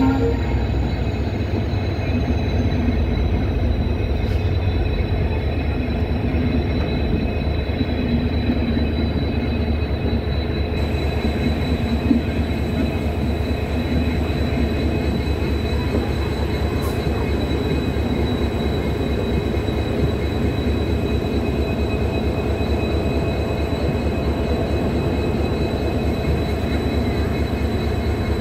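Passenger train coaches rolling past close by: a steady rumble of wheels on rails with one sharp clack about twelve seconds in.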